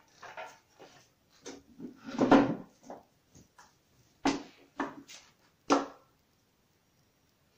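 Knocks and clunks of empty picture frames being handled and set in place against a fireplace: one longer, louder clunk about two seconds in, then four short sharp knocks over the next couple of seconds.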